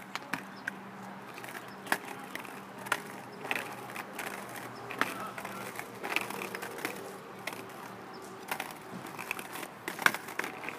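Inline skate wheels rolling and scraping on rough asphalt, with irregular clacks as a beginner's skates strike and slap the road, about one to two a second. A faint steady hum sits underneath.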